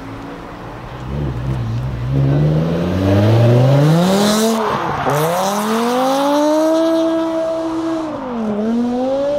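Sports car engine revving hard under acceleration, its pitch climbing, dropping sharply about halfway through as at a gear change, then climbing again, with a shorter dip near the end.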